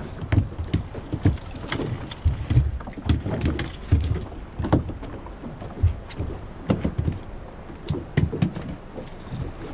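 Water slapping against the hull of a small drifting boat, an uneven run of low thumps, with wind buffeting the microphone and scattered sharp knocks and clicks.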